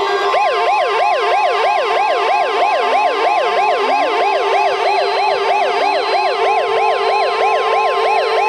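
Electronic yelp siren, its pitch sweeping up and down rapidly, about three and a half times a second, over steady held tones that continue underneath.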